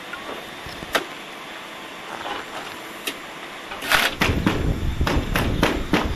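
Tool work on an above-ground pool's steel wall and uprights: a couple of faint clicks at first, then from about four seconds in a loud rumble with a quick run of sharp clicks and knocks, about four a second.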